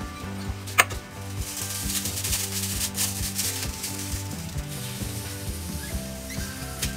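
A spoon clinks sharply against a bowl about a second in, followed by a few seconds of rustling and scraping as fried chanterelles are spooned into a plastic bag lining the bowl.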